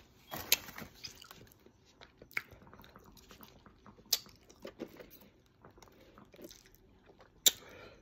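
Close-up mouth sounds of chewing and lip-smacking, with several sharp, wet clicks, between sips of soda through a straw.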